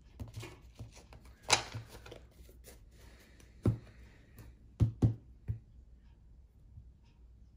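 Trading cards being handled by hand: a short rustle about a second and a half in, then a few sharp taps about four and five seconds in, with quiet handling between them.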